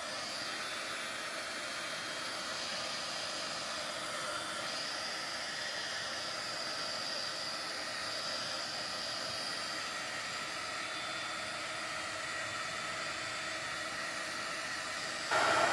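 Craft heat tool blowing hot air steadily over alcohol ink on synthetic paper: a fan hiss with a faint motor whine. It gets louder near the end.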